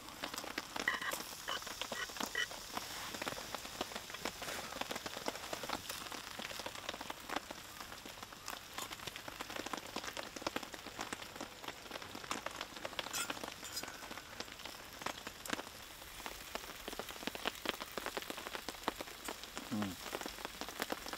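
Steady rain pattering, with many small, sharp drop ticks scattered through it.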